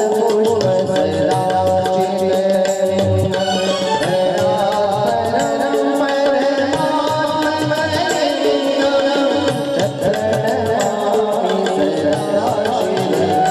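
A man singing a Hindu devotional song through a public-address system, accompanied by tabla playing a steady rhythm and held instrumental notes.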